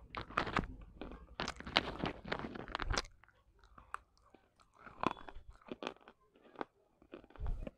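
Broken clay pot pieces being crunched and chewed, picked up close by a lapel microphone. A dense run of crisp crunches fills the first three seconds, then it thins to sparser, quieter chewing clicks.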